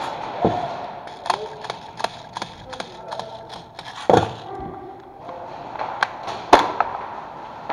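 Scattered sharp cracks of airsoft gunfire in a close-quarters game, about a dozen at irregular intervals. The loudest come around four seconds and six and a half seconds in.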